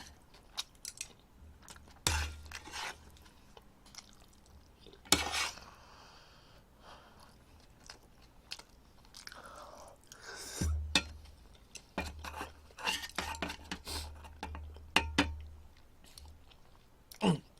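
A person chewing and eating close to the microphone, with scattered small clicks and taps of dishes and utensils. There are dull low bumps in the second half.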